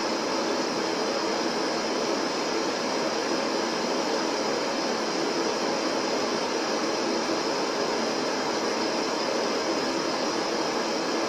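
Steady electronic static noise: an even hiss with no rhythm or tones, thin in the bass, holding the same level throughout.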